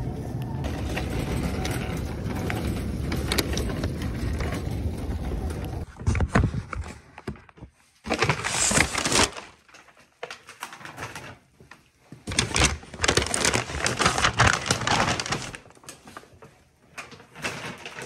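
A steady rumble runs for about six seconds and then stops abruptly. Brown paper grocery bags then crinkle and rustle in several bursts as they are carried and set down on a carpeted floor, the longest burst about halfway through.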